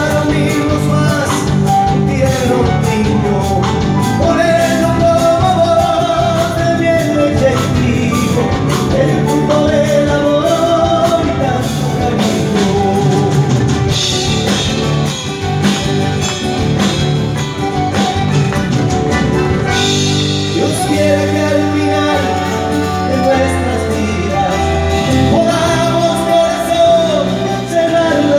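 Live folk band playing a song with a male lead vocal, over acoustic guitars, violin and piano, during a stage soundcheck.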